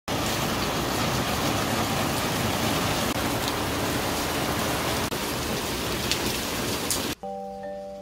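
Heavy rain pouring onto a paved yard and potted plants, a dense steady hiss. About seven seconds in it cuts off and mallet-percussion music with marimba-like notes begins.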